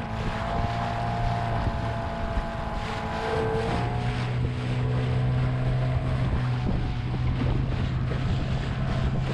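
A small boat's motor running steadily under way. About four seconds in its note steps up and gets a little louder. Water splashes off the hull, with some wind on the microphone.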